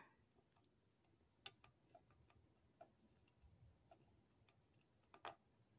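Near silence with a few faint small clicks of the diamond-art pen tip and plastic gems tapping as gems are picked up and pressed onto the form; the loudest click comes near the end.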